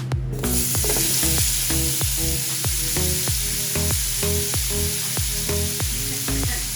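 Seasoned potato pieces sizzling as they fry in hot olive oil in a pan; the sizzle starts suddenly about half a second in. Background music with a steady beat plays throughout.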